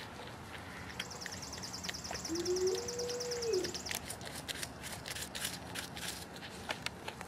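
Porcupine chewing a chunk of fruit: crisp, irregular chewing clicks. A bird's rapid, even trill runs from about one second in to about four seconds, and a short whine that steps up in pitch sounds near the middle.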